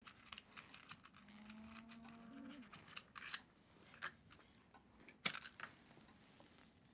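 Soft clicks, taps and scrapes of a calabash pipe being handled and smoked at a wooden table. A faint low hum runs for about a second and a half from about a second in, and a sharper click a little past the middle is the loudest sound.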